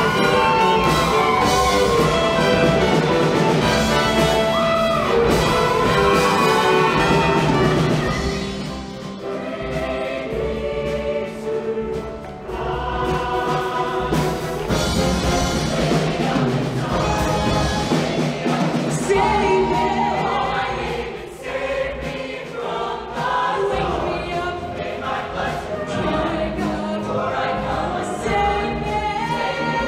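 Show choir singing with a live backing band that includes brass. The music is loud at first, drops back about eight seconds in, and builds up again, with another brief dip past the twenty-second mark.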